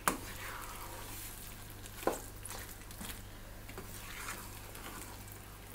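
A spatula stirring a thick mash of tapioca and chicken curry in a nonstick kadai, with faint sizzling as the mixture heats through. The spatula knocks against the pan at the start and again about two seconds in.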